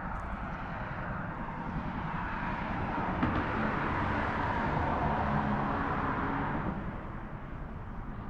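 A vehicle passing: its noise swells over a few seconds and fades away near the end, over a steady low rumble.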